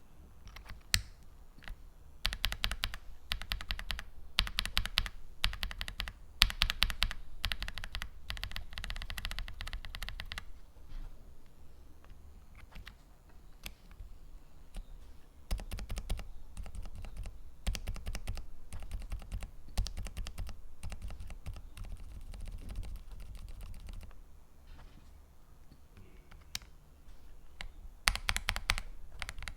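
Typing on a mechanical keyboard fitted with Kailh MX-style linear switches: runs of fast keystrokes, clacking and bottoming out. The strokes are louder and sharper in the first third and near the end, and softer through the middle stretch.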